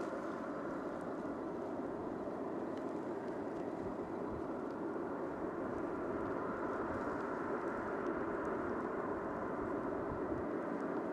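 Steady rushing noise of aircraft engines running at the airport, an even sound without a clear pitch that grows slightly louder about halfway through.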